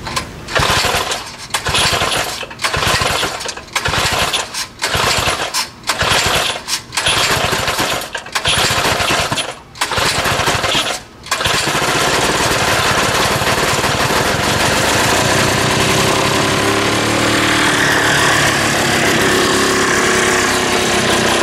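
Small 3 hp Tecumseh snowblower engine starting cold by pull cord. It fires in uneven bursts with repeated short dropouts, stumbling for about eleven seconds, then settles into steady running.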